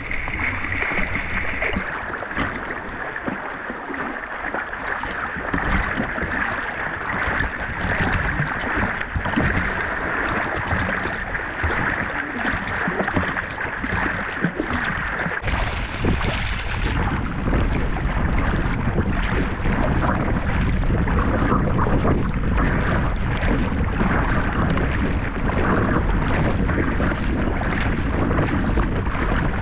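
Sea water splashing and sloshing from front-crawl strokes, heard from a camera riding at the water's surface, with wind rumbling on the microphone, heavier in the second half.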